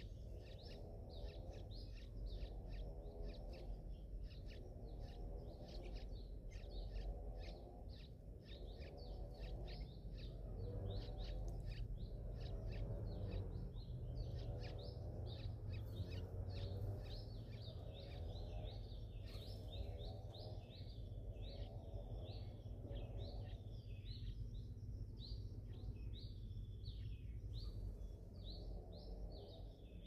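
Birds chirping rapidly, many short high chirps a second, over a steady low rumble, with a lower pulsing call repeating about once a second.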